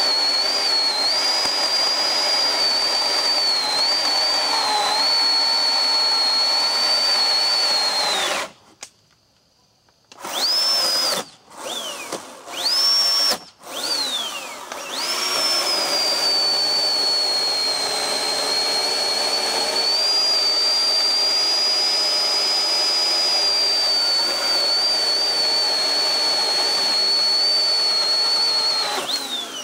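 Oregon 40V battery chainsaw's electric motor running with a high steady whine, the pitch sagging slightly now and then as the chain works through a log. About eight seconds in it winds down and stops, then is blipped three or four times, each whine rising and falling away, before running steadily again; right at the end it winds down and starts straight back up.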